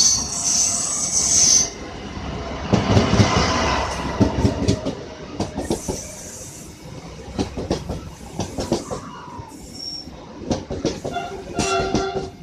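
Passenger train rolling past, its wheels clacking over the rail joints with a high squeal from the wheels at times.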